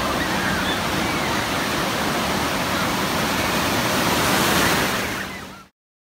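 Ocean surf breaking and washing through shallow water, a steady loud rush with faint distant shouts and voices of swimmers; it swells briefly, then fades and cuts off abruptly near the end.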